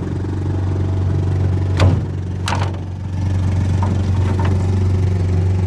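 Boat motor idling with a steady low hum. A sharp knock comes about two seconds in, followed by another click and a few lighter clatters in the boat.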